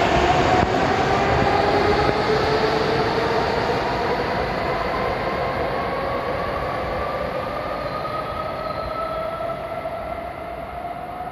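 N700S Kamome Shinkansen train accelerating away from the platform: its traction motor whine, in two tones, rises steadily in pitch while the running noise fades as it draws away.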